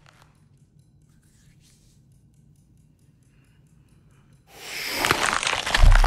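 Near silence for about four and a half seconds, then a loud burst of rapid clicks over hiss that swells quickly, with a deep low rumble coming in near the end: the film monster's clicking.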